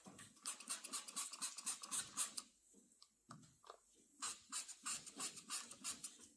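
Wet-sandpaper hand-sanding a painted car hood with 1200 grit: quick back-and-forth scratchy strokes under light pressure, which stop for a moment in the middle and then resume. It is color sanding to take the orange peel out of the clear coat.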